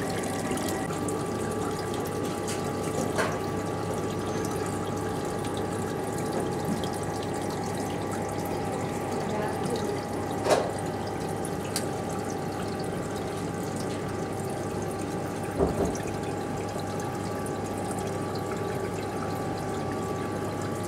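Steady rush of circulating water in a reef aquarium with a constant pump hum, broken by a few brief knocks.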